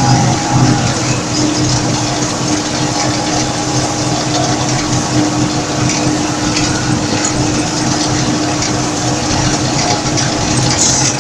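Combine harvester working through standing wheat, heard from inside its cab: a loud, steady drone of engine and threshing machinery with a constant hum.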